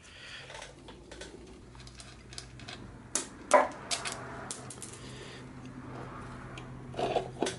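Socket ratchet clicking in irregular runs while the front axle nut is worked loose, with two sharper metal knocks about three and a half seconds in.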